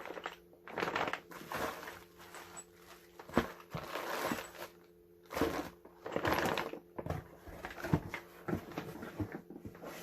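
Packaging rustling and crinkling in short, irregular bursts, with a few sharp knocks and clicks, as a box of hardware parts is unpacked by hand.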